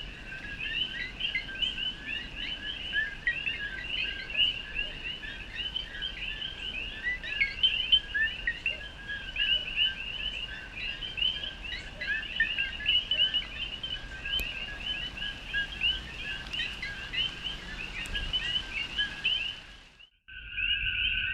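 Chorus of many male common coqui frogs: a dense, continuous overlap of two-note "co-qui" mating calls, each a lower note followed by a higher chirp. Near the end the sound cuts out for a split second, then resumes.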